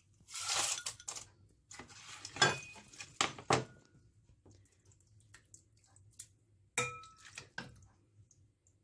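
Ice tipped from a bowl into a metal pot of milky sharbat with a short splashing rattle. It is then stirred with a ladle: a run of knocks and clinks of ice and ladle against the pot, with a short ringing clink near the end.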